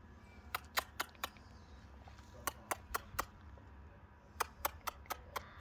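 Sharp clicks in three quick runs of four or five, about four clicks a second, with pauses between the runs.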